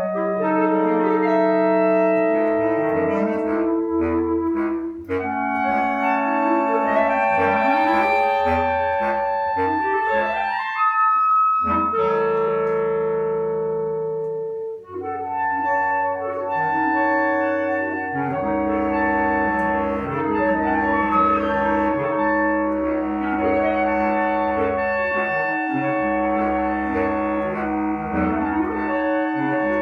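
Instrumental concert music in layered, held notes with a woodwind-like lead. About ten seconds in, a line glides upward. A brief drop in level follows, then dense sustained chords with a steady low bass fill the rest.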